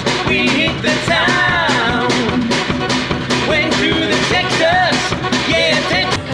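Upbeat rock-style music with a sung melody over a steady drum beat.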